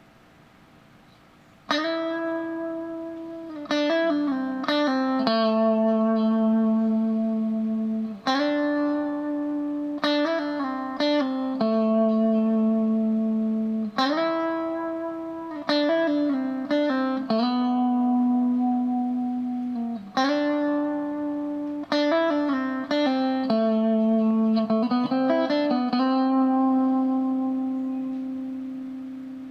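Electric guitar played through a Behringer compressor pedal. A short phrase of quick plucked notes settles into a long held note, repeated about every six seconds, with the notes sustaining at an even level. The last held note fades out slowly near the end.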